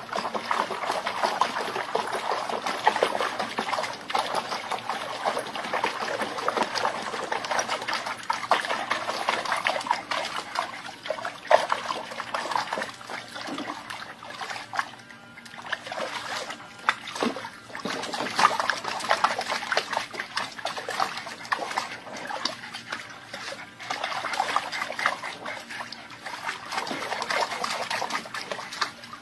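Water splashing and trickling in an irregular patter, with a short lull about halfway through.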